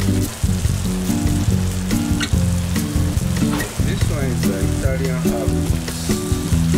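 Tomato meat sauce with eggplant and mushrooms sizzling and crackling as it simmers in a frying pan, over background music with steady low notes.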